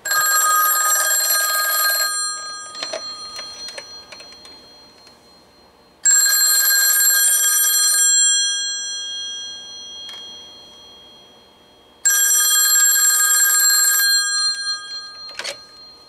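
Western Electric rotary desk telephone's bell ringer ringing three times, each ring about two seconds long and six seconds apart, with the gongs ringing on and fading after each ring. A knock or two of handling near the end.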